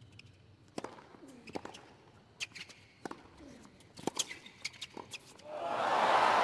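Tennis rally on a hard court: a serve and a string of sharp racket hits and ball bounces about every half second to a second, with a few shoe squeaks. About five and a half seconds in, the crowd breaks into loud cheering and applause as the set point is won.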